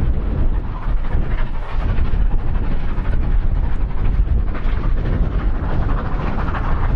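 Two steam tank locomotives, 813 and 7714, working hard together up a steep bank, their exhaust a distant, steady churning. Wind buffets the microphone.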